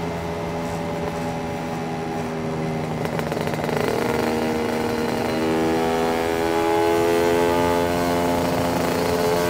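Lambretta two-stroke engine, a TS1 230 kit, running through a SIP Nordspeed touring exhaust, heard from the saddle while cruising. The exhaust note is steady and rises a little in pitch and loudness about halfway through as the scooter picks up speed.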